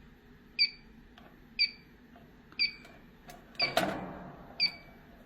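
Inficon Gas-Mate combustible gas leak detector beeping about once a second, short high chirps, as its sensor just begins to detect a gas leak on medium-high sensitivity. A brief louder noise sounds a little past halfway.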